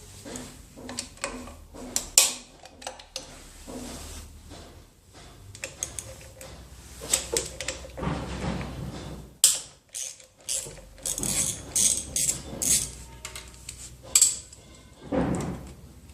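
Metal hand-tool and parts work on a motorcycle's drive chain: regular clicking, about two clicks a second at first, then louder irregular clanks and rattles of metal on metal.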